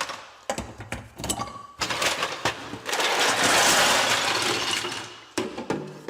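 Ice cubes clattering as they are poured into a garbage disposal: scattered clinks at first, then a long rush of clattering ice from about three seconds in, fading off near the end.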